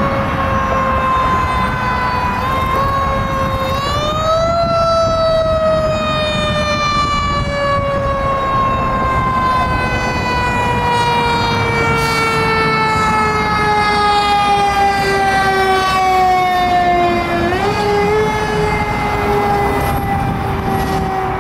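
Fire engine's siren wailing in long, slow falls in pitch. It is pushed back up about four seconds in and again near the end. A low rumble of the truck and traffic runs underneath.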